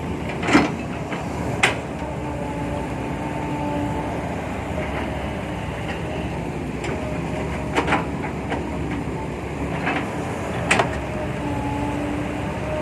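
Kobelco SK120-5 excavator working, its engine running steadily under load with a faint whine that comes and goes. About four sharp clanks sound: near the start, at about two seconds, at about eight seconds and at about eleven seconds.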